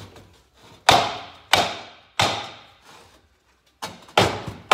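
Rubber mallet striking the aluminium crankcase of a 1975 Kawasaki KE100 engine, about five sharp blows a half second or more apart, each ringing off briefly. The blows are to knock apart case halves held fast by rusted dowel pins.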